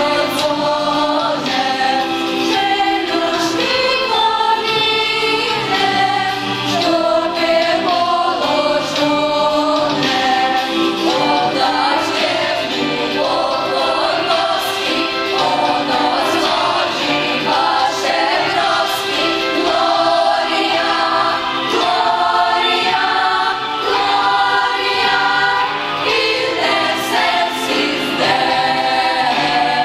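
A young choir, mostly girls' voices, singing a Polish Christmas carol (kolęda).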